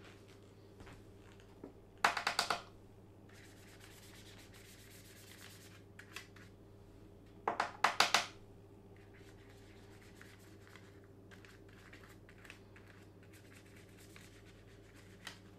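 Quiet handling noise from hands, stencil and paintbrush: two short clusters of clicks and scrapes, about two seconds in and again about eight seconds in, with a soft scratchy rubbing between them, over a faint steady hum.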